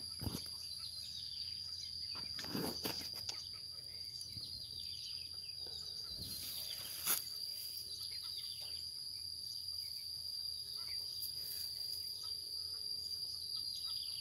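Insects droning steadily at one high pitch, with a few short knocks and rustles from handling, one about two and a half seconds in and one about seven seconds in.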